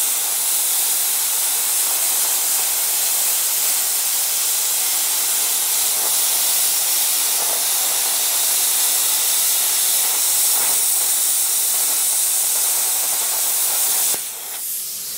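Everlast Hatchet 60 plasma cutter's arc hissing steadily as it cuts a hole through quarter-inch steel plate. The arc cuts off about fourteen seconds in, leaving a fainter hiss.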